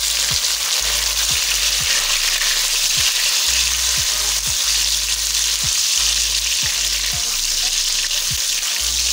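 Pieces of pre-boiled goat meat sizzling steadily in hot oil with fried onions while being stirred.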